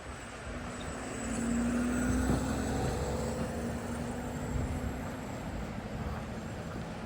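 A motor vehicle's engine hum, steady and loudest about two seconds in, over a noisy outdoor background.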